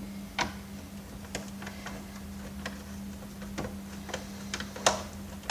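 Irregular sharp clicks and ticks of a hand screwdriver working screws out of a vacuum cleaner's housing, over a steady low hum.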